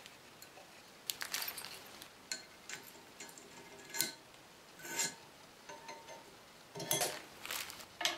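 Irregular metallic clinks and knocks as an aluminium dowelling jig and its parts are handled and set down on a wooden bench. The sharpest ones ring briefly, and the loudest cluster comes near the end.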